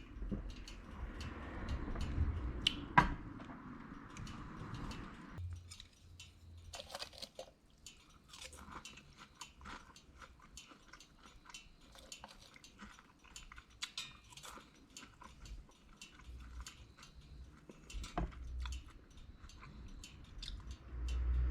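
Someone chewing crisp deep-fried moroko, small whole freshwater fish, with many short crunches throughout. There is a single louder knock about three seconds in.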